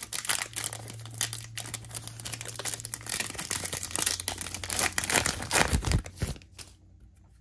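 A foil trading-card pack being torn open and crinkled by hand, a dense crackling that stops about six seconds in.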